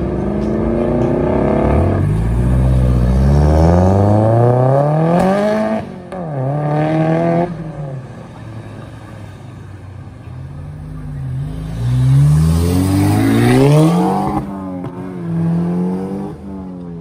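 Car engine accelerating hard through the gears, its pitch climbing and then dropping at each shift, with a quieter stretch in the middle and a second hard run of acceleration and shifts near the end.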